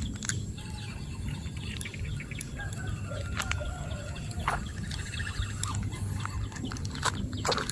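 Birds chirping faintly over a steady low rumble, with scattered sharp clicks.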